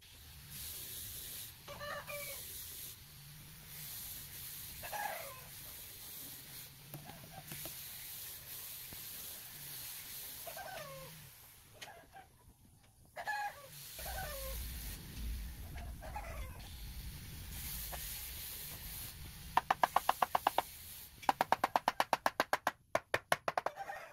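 Chickens clucking now and then over a faint hiss. Near the end comes a loud, fast run of even clicks, about ten a second, in three bursts.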